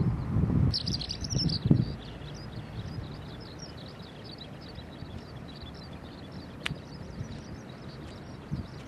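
Eurasian skylark singing a long, continuous song of rapid high chirps and trills. A low rumble on the microphone is loudest in the first two seconds.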